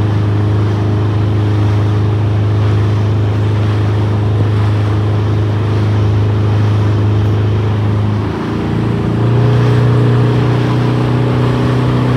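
Motorboat engine running at cruising speed over the rush of water from the hull and wake. About eight seconds in, the engine note dips briefly, then settles at a slightly higher pitch.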